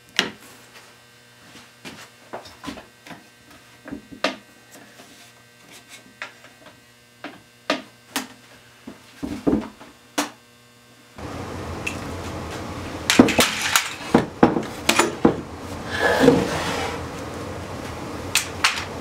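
Metal bar clamps clicking and knocking as they are set and tightened on a wooden box, over a low steady hum. About eleven seconds in a steady hiss sets in, and louder knocks and clatter of wood and metal follow.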